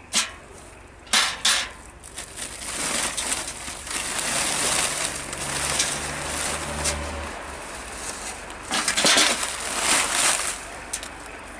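Sharp clicks, then a long stretch of rough scraping and crackling from hard objects being handled, with louder bursts near the end.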